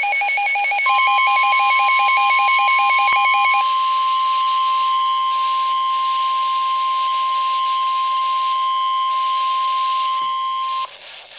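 Emergency Alert System tornado-warning alert tones. A rapid, warbling electronic beep pattern plays for the first few seconds. It overlaps a steady single-pitched alarm tone, the National Weather Service warning alarm, which starts about a second in, holds for about ten seconds and cuts off suddenly, with a hiss underneath.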